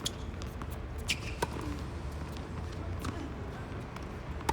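Tennis ball struck by a racket and bouncing on the court during a rally: sharp single pops a little after a second in, another about a third of a second later, and one more near the end.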